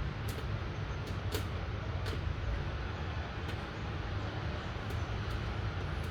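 Light rain falling, a steady hiss with scattered sharp drop ticks, over a constant low rumble.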